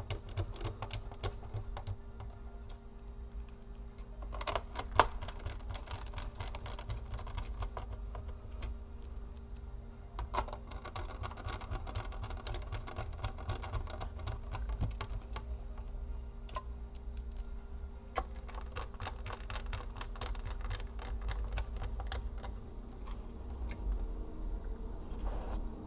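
Irregular small clicks and taps of a precision screwdriver and tiny screws as screws are refitted into a laptop's motherboard and chassis, with one sharper click about five seconds in. A steady low hum runs underneath.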